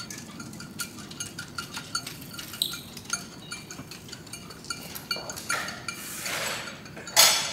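Bicycle clinking and rattling as it is ridden over concrete paving and then wheeled along and parked, with a louder clatter near the end.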